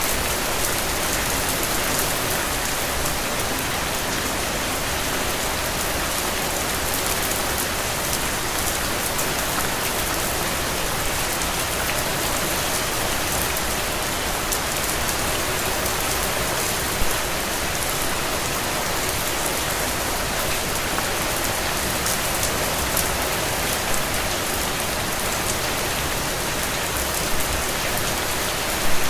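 Steady rain falling, close drops ticking through an even hiss, with one brief louder tap about 17 seconds in.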